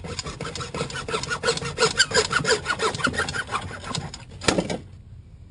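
Hand saw cutting through a 1.5-inch PVC sump discharge pipe, with rhythmic back-and-forth strokes about three or four a second. The strokes end with a louder stroke about four and a half seconds in.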